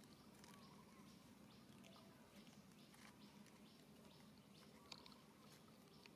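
Near silence: faint outdoor ambience with a low steady hum and soft, high chirps repeating every fraction of a second, and one small click about five seconds in.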